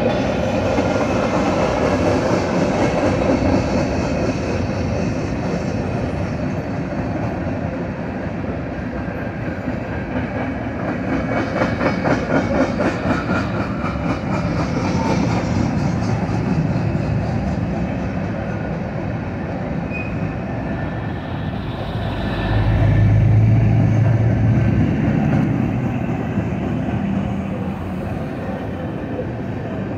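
Freight cars of a Norfolk Southern mixed freight train rolling past at a grade crossing, a steady rumble with steel wheels clacking over the rails, heard from inside a car stopped at the crossing. About three-quarters through, a low engine hum from a nearby road vehicle swells for a few seconds.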